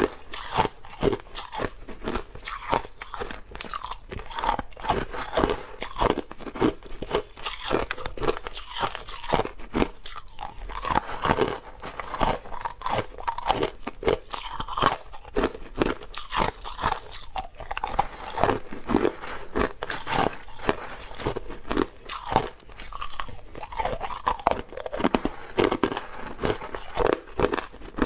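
Close-up crunching of clear, hard crushed ice being bitten and chewed, with many sharp crunches a second.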